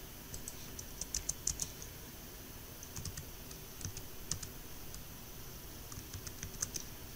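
Computer keyboard keys clicking in short irregular clusters, the key presses of switching programs with Alt-Tab and copying and pasting.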